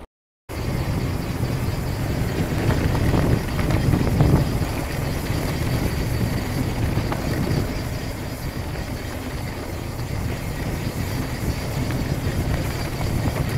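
Steady rush of wind on the microphone with the rolling tyre noise of a mountain bike descending a dirt singletrack. It follows a half-second dropout to silence at the very start.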